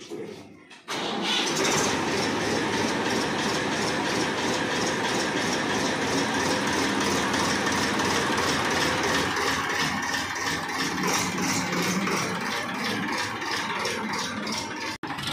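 Massey Ferguson 241 DI tractor's diesel engine running close by as the tractor is driven off, a steady, loud, fast-pulsing chug. The sound comes in abruptly about a second in and breaks off for a moment near the end.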